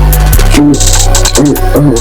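Loud electronic music with a deep, steady bass line, a driving drum beat and short melodic notes.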